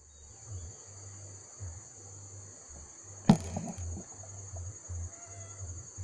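Steady high-pitched drone of insects in the surrounding trees, over low, uneven rumbling bumps on the microphone. One sharp, loud click a little after three seconds in.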